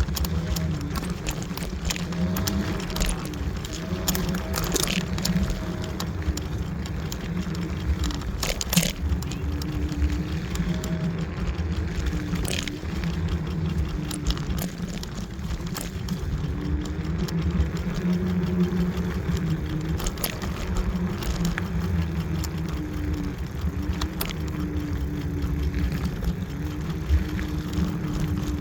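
Kaabo Wolf Warrior electric scooter being ridden: a steady low rumble with the motor's whine wavering up and down as speed changes, and scattered clicks and rattles.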